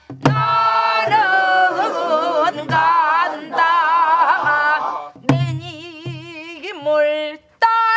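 Voices singing a Korean folk tune together in pansori style, with wide vibrato on long held notes, to the strokes of a buk barrel drum. A sharp drum stroke comes right at the start and another about five seconds in.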